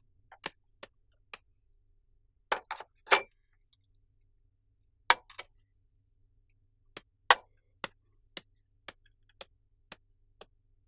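Scattered sharp clicks and clinks as a tray with a glass of water is set down on a glass-topped table. Near the end come light footsteps on a tile floor, about two a second, growing fainter.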